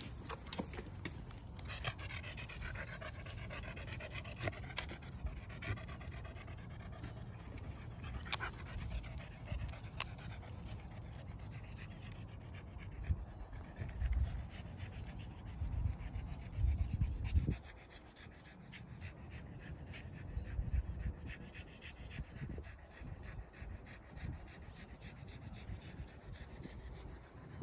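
A beagle-type dog panting.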